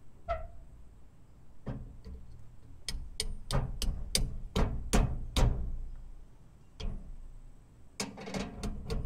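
Sharp metal strikes on a seal driver, seating a new oil seal into a cast housing. A string of taps comes about three a second from a few seconds in, and a faster run of taps starts near the end.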